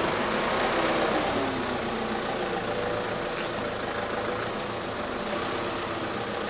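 Motor vehicle engines running in slow traffic, a heavy vehicle such as a truck among them, over a steady rushing noise. The sound eases slightly after about a second and a half.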